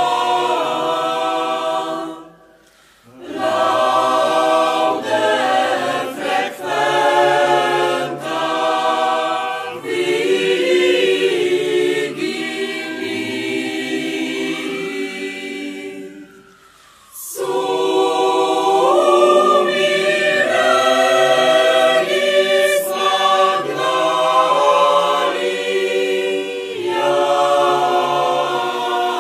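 Mixed choir of women's and men's voices singing, with two brief pauses between phrases, about two and a half seconds in and again past the middle.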